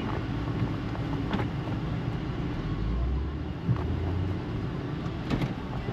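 A car driving along a road: a steady low rumble of engine and road noise, with a few faint knocks.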